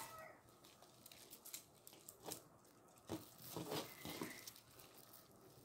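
Faint clicking and rattling of a netted collar of coral-coloured tube beads being handled and spread out, the beads knocking together, with a few louder crackles in the middle.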